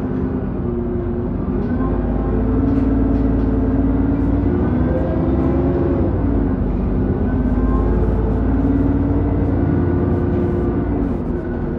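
Alexander Dennis Enviro 400 double-decker bus accelerating: a low engine rumble with a strong whine whose pitch steps and glides up and down as the bus picks up speed. This whine is the unusual acceleration sound.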